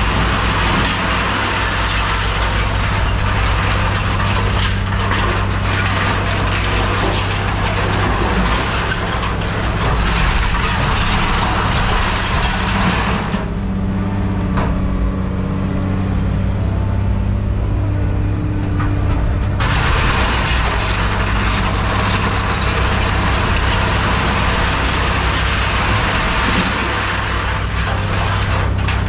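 Heavy diesel machine running steadily with a low drone, over a constant crunching, crackling noise of scrap metal being handled. The crunching stops for about six seconds midway while the engine keeps running, then resumes.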